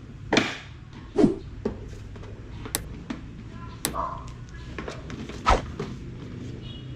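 A series of irregular knocks and clunks over a steady low hum, the loudest about a second in and near five and a half seconds.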